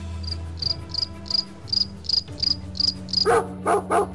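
A cricket chirping steadily, about three high chirps a second. A dog then barks three times near the end.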